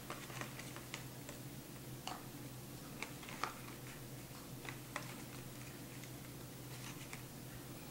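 Faint, irregular light clicks and taps of small kitchen containers and utensils being handled at a countertop, over a steady low hum of room tone.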